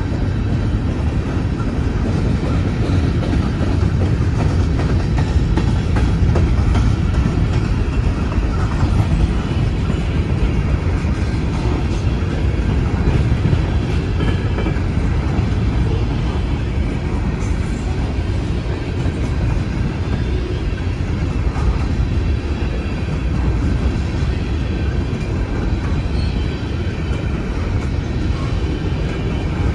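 Empty coal train's gondola cars rolling past steadily, their steel wheels running on the rails.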